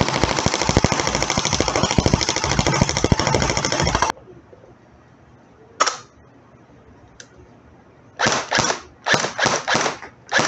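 Airsoft Umarex (G&G) MP5 electric gun firing full auto on its stock motor: one long, rapid, rattling burst of about four seconds. After a cut, the same gun with a Matrix Reloaded speed motor fires seven short bursts from about six seconds in, most of them near the end.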